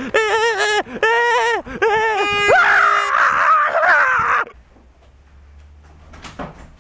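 A young man's voice screaming in high-pitched, wavering wails: three short ones, then a longer, rougher scream that cuts off about four and a half seconds in. After that only a faint low hum remains.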